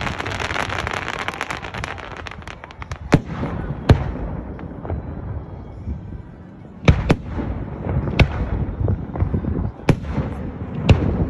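Aerial firework shells bursting overhead. A dense crackling runs for the first two seconds or so, then comes a string of about seven sharp booms, spaced roughly a second apart.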